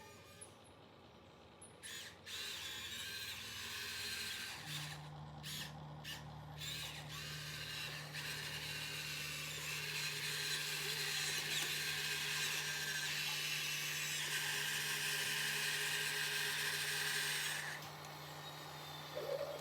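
Small motor-driven machine running, like a power tool: a harsh high-pitched hiss that starts and stops several times, then runs steadily over a steady low hum and cuts off suddenly near the end.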